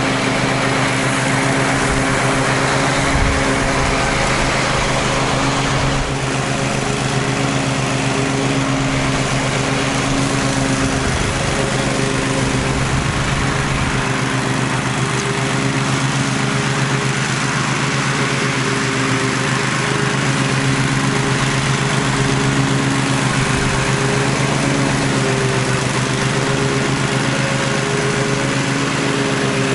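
Zero-turn riding lawn mower engine running at a steady speed while the mower cuts grass.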